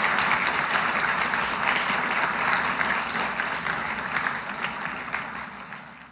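A large audience applauding, many hands clapping together; the applause slowly fades over the last couple of seconds.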